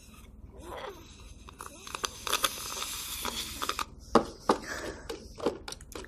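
Light clicks and scraping from hands working a small plastic toy drink-making kit, with a stretch of faint crackly hiss in the middle and a few sharp clicks near the end.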